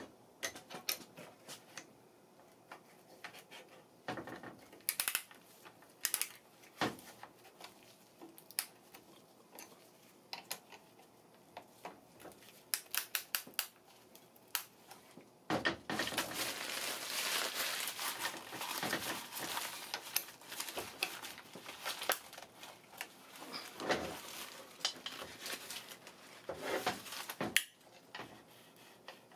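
Light metallic clicks and taps of a piston ring compressor and piston being worked into the cylinder of a Briggs & Stratton vertical engine block, with a longer stretch of steady rustling noise about halfway through.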